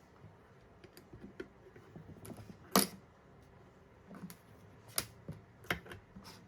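Scattered small clicks and taps, the loudest a little under three seconds in, from handling multimeter test leads and wires against a breadboard.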